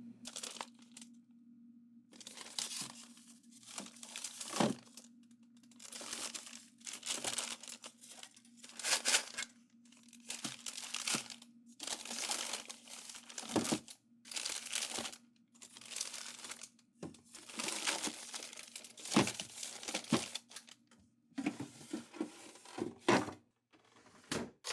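Crinkly packaging being handled: repeated bursts of rustling and crinkling, one every second or two, over a steady low hum.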